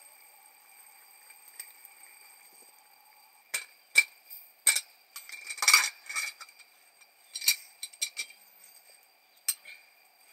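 Kitchen utensils and dishes clinking and knocking: a quiet start, then a run of sharp clinks from about three and a half seconds in, busiest near the middle, tailing off into a few single clicks.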